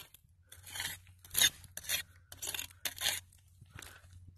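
Gritty, debris-filled dump soil scraped away from around a half-buried glass beer bottle, about six short rasping scrapes, the loudest about a second and a half in.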